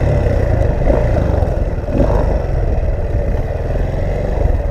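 Motorcycle engine running steadily, mixed with heavy wind buffeting on the microphone.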